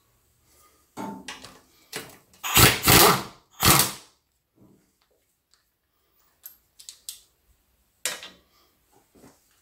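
Small pneumatic impact wrench run in two short bursts, about two and a half seconds in and again just before four seconds, loosening a bolt on an automatic transmission oil pan. Lighter knocks and clicks of tool handling come before and after.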